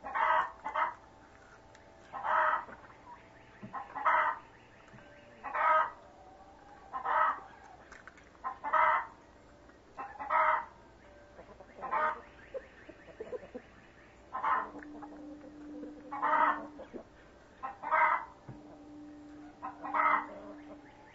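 A chicken calling over and over: a short, loud call about every one and a half seconds, some a quick double, a dozen or so in all.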